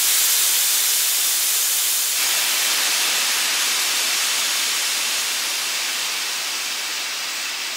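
Steam hissing steadily, easing off slowly toward the end.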